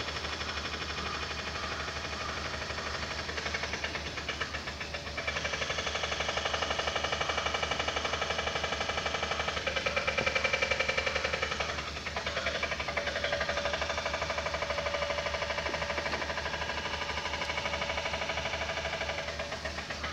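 An engine running steadily with a fast knocking pulse. Its pitch and loudness shift about five seconds in and again about twelve seconds in.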